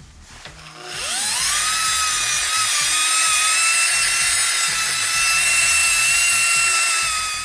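Electric rotary polisher spinning up with a rising whine, then running at a steady high speed while buffing polish into a plastic headlight lens; the sound fades near the end.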